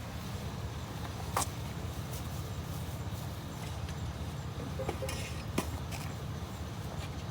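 A vehicle engine idling steadily, a low rumble, with a few sharp clicks and knocks about a second and a half in and again near five and a half seconds.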